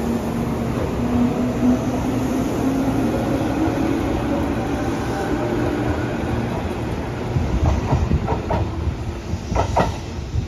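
Tobu 8000-series electric train pulling away, its traction motors whining upward in pitch as it gathers speed over a steady rolling rumble. Over the last few seconds its wheels clatter over rail joints in quick pairs of knocks.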